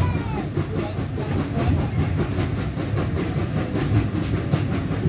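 Railway carriage running along the track, heard from inside: a steady low rumble with quick clicks and rattles from the wheels and bodywork.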